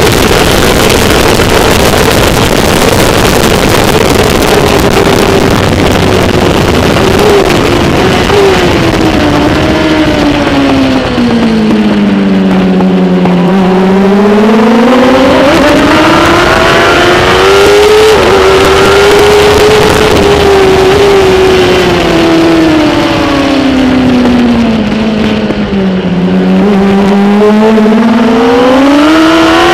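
Kawasaki ZX-10R superbike's inline-four engine heard onboard at racing speed, with a steady rush of wind. Twice the engine note sinks as the bike slows for a corner, then climbs again as it accelerates out.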